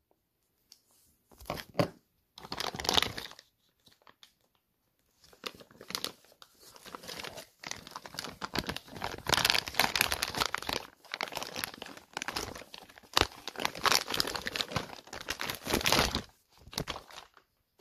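Plastic packaging crinkling and tearing as it is ripped open by hand, in bursts that begin about a second and a half in, pause briefly, then run almost continuously until near the end.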